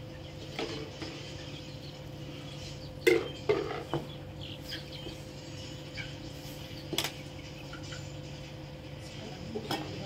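Sharp metallic knocks and clinks against an aluminium cooking pot while bread dough is mixed in it by hand: a cluster of the loudest about three to four seconds in, another near seven seconds and one near the end, over a steady low hum.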